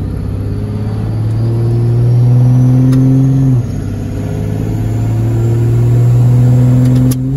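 5.9 Cummins inline-six turbo diesel in a Dodge Ram pulling hard under acceleration, heard from inside the cab; the engine note climbs and grows louder, then drops suddenly as the automatic transmission upshifts, about three and a half seconds in and again near the end, each shift triggered by bumping the ratchet shifter.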